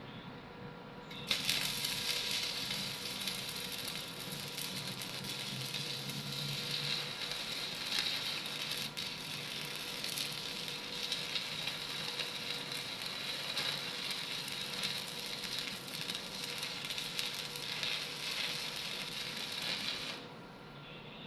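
Electric arc welding: the arc crackles and sizzles steadily as a bead is run. It starts abruptly about a second in and stops abruptly near the end.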